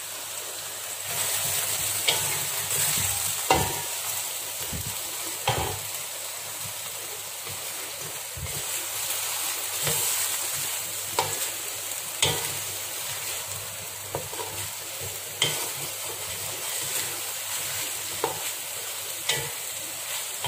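Tomatoes, onions and spice powder sizzling in hot oil in a metal wok while being stirred with a spatula, with a steady frying hiss and occasional knocks and scrapes of the spatula against the pan.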